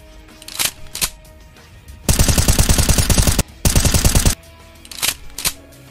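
Machine-gun sound effect: two short sounds, then two loud bursts of rapid automatic fire separated by a brief gap, then two more short sounds. It is dubbed in place of cats' meows, with faint background music underneath.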